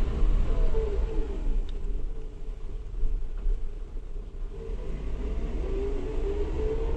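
Transmission whine from a new Suzuki Jimny driven in low range, over the low rumble of the running vehicle. The whine falls in pitch and fades during the first couple of seconds as the vehicle slows, then rises again from about five seconds in as it speeds up.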